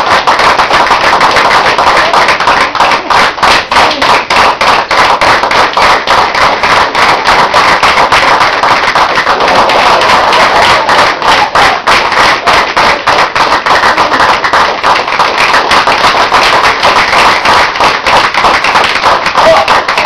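A group of people clapping fast and loud without a break, as encouragement for a performer.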